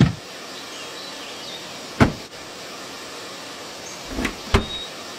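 Short knocks and clunks of a 4x4's rear door: a thud at the start, another about two seconds in, then two clacks close together near the end as the rear door is unlatched and opened. Steady outdoor ambience runs underneath.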